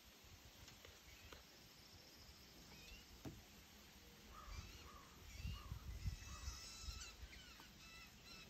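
Faint animal calls, high chirps and short lower cries, from about halfway through, with a few soft low thumps.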